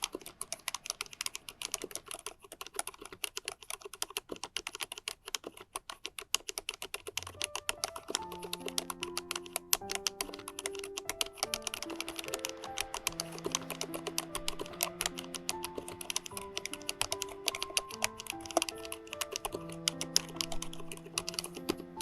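Fast, continuous typing on a COX CK01SL mechanical keyboard with PBT keycaps and 45gf low-noise white switches, a dense run of key clicks. Soft piano-like background music comes in about eight seconds in, under the typing.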